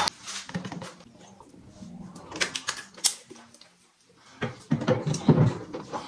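A run of light knocks and clicks of hard objects, with a louder cluster of clatter about two-thirds of the way in.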